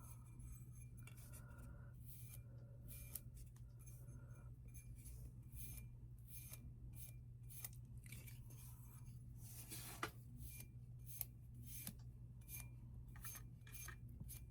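Faint, quick rubbing strokes as metallic glaze is wiped onto a painted surface, over a steady low hum.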